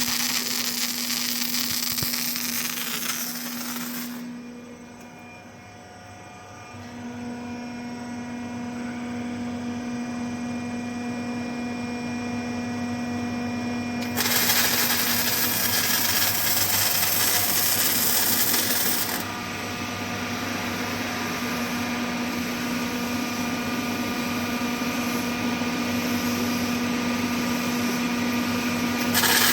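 CO2 arc spot welding by an H-beam welding machine: the arc hisses in spells of about four to five seconds, about fourteen seconds apart, over the machine's steady electrical hum. Between welds the machine hums with a few steady tones as it travels.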